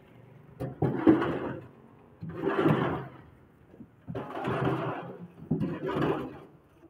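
Concrete blocks being scraped and slid across the gritty bed of a tractor trolley and set down, in four rough scraping bursts of about a second each.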